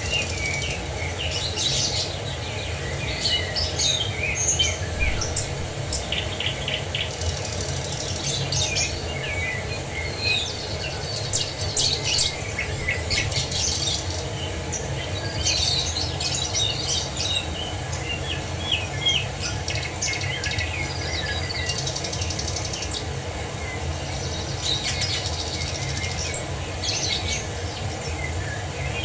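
Many small birds chirping and trilling at once, with quick overlapping calls, over a steady low rush of falling water.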